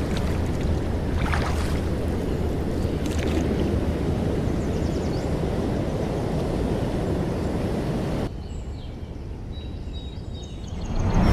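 Steady outdoor noise of wind and water at a riverbank, with a strong low rumble. About eight seconds in it drops suddenly to a quieter background with faint high chirping.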